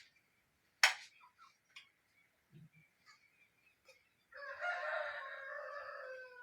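A rooster crowing once past the middle: one long call of about two and a half seconds that falls in pitch at the end. About a second in, a single sharp click, the loudest sound.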